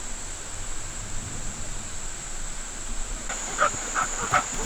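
Steady rush of a waterfall and stream. About three seconds in it is joined by a quick run of short high-pitched squeaks, about three a second.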